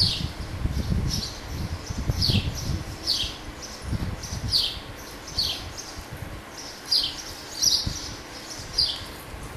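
A bird chirping over and over, short high chirps that each fall in pitch, about one a second, over a low uneven rumble.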